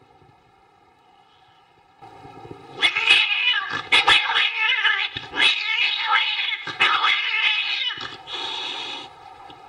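A string of drawn-out, wavering yowls like a cat's caterwaul, starting about two seconds in and broken by short gaps, over a faint steady hum. The yowls stop shortly before the end.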